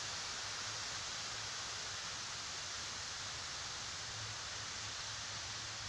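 Steady outdoor background hiss with a faint low hum underneath; no distinct event stands out.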